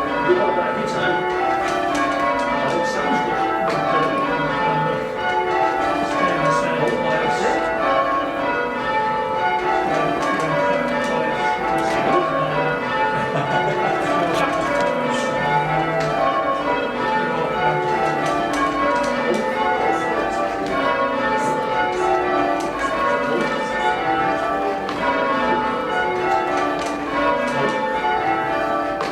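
Church tower bells rung full circle in change ringing, each bell striking in turn so that the notes fall in repeated descending runs of about two seconds, over and over.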